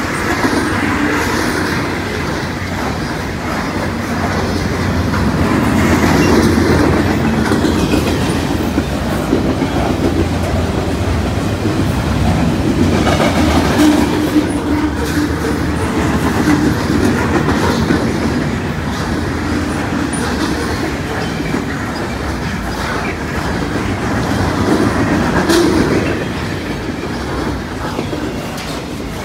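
Norfolk Southern freight train of waste-container flatcars rolling past at close range: a steady rumble of wheels on rail, with wheels clicking over rail joints and occasional sharp clanks. The sound swells louder several times as cars go by.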